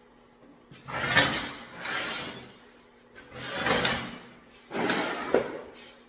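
Welding arc crackling in four short bursts of about a second each, starting about a second in: tack welds joining a small hooked piece of horseshoe nail onto a steel horseshoe buckle.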